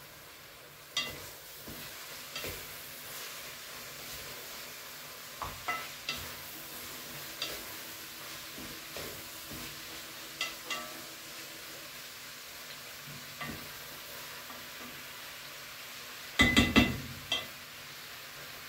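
Bell pepper and meat frying in a pan, sizzling steadily as they are stirred, with scattered clicks of the utensil against the pan. A quick run of louder knocks comes near the end.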